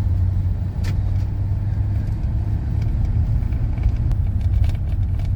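Steady low rumble of road and engine noise inside a car's cabin, with a faint click about a second in.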